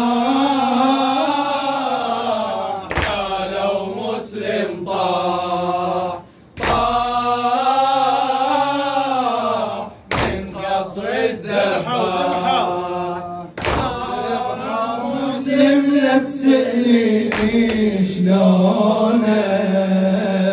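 A male radood chanting a Shia lament (latmiya) in Iraqi Arabic, in long, wavering melodic phrases. A sharp thump of a hand beating the chest (latm) cuts in about every three and a half seconds.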